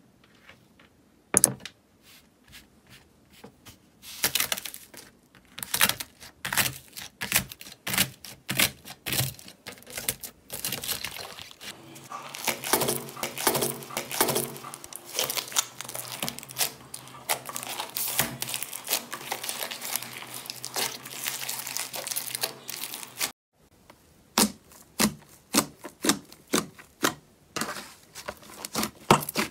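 Slime being squeezed and pulled by hand, giving dense runs of sharp crackles and pops. It breaks off suddenly near the end, and a new series of crisp pops starts.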